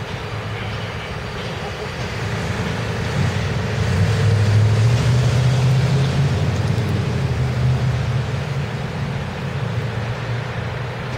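Diesel engine of a heavy-haul truck pulling a locomotive on a lowboy trailer slowly past: a low engine drone that builds to its loudest a few seconds in, then eases off.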